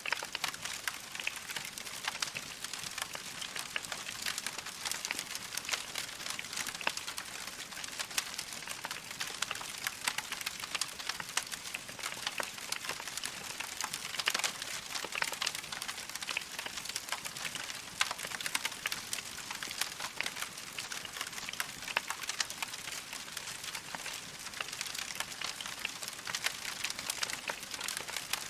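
Wood fire crackling steadily, with a dense stream of small pops and snaps over a soft hiss.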